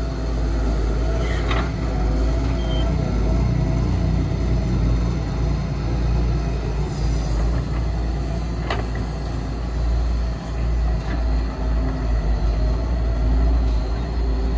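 Diesel engine of heavy construction machinery running steadily under load, with a few brief knocks.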